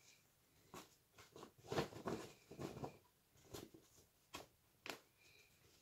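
Non-woven fabric shopping bag rustling as it is shaken open and pulled by its handles: a string of short, faint rustles, the loudest about two seconds in.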